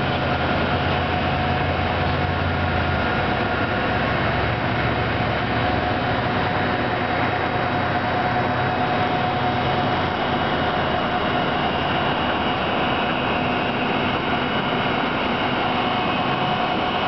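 Steady drone of heavy construction machinery engines running, with a steady whine on top. A low hum in the first few seconds drops away about three seconds in.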